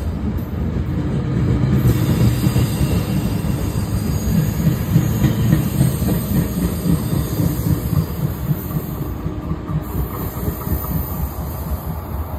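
Tri-Rail commuter train pulling out of the station: a low rumble with rail clatter from the coaches, easing off toward the end.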